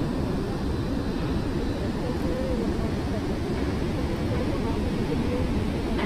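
Steady roar of turbulent river water rushing out below a barrage's gates, churned white with foam by its speed.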